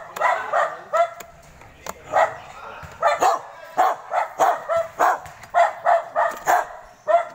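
A dog barking in a quick run of short barks, about two or three a second, with a brief pause about two seconds in.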